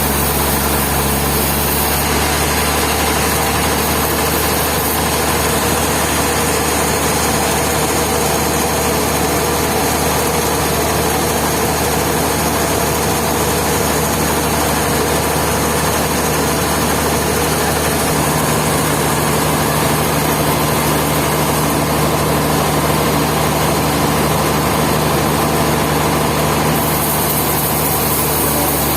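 Sawmill machinery running steadily: a continuous low mechanical hum under a dense, even noise, shifting slightly in tone a couple of times.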